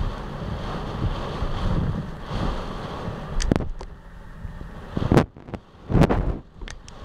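Storm gusts and heavy rain lashing a window pane: a steady rushing noise, then from about halfway several loud, sudden blasts as the gusts hit.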